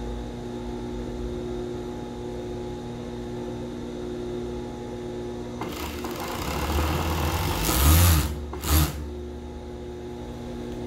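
Siruba industrial overlock machine (serger) humming steadily while idle. About six seconds in, it stitches a seam for roughly three seconds, stops, and then runs again in one short burst.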